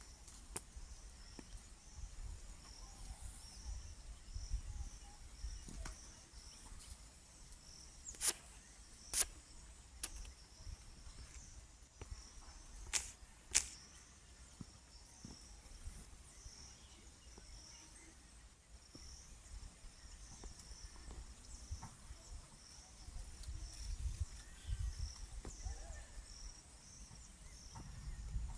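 Insects chirping in a steady, pulsing high chorus over low wind rumble, with four short sharp sounds in two pairs, about a third of the way in and about halfway through.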